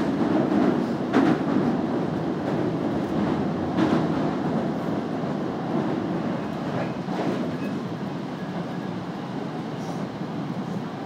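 Osaka Midosuji Line subway train heard from inside the car while running between stations: a steady rumble of wheels on rails, with a few sharp clicks.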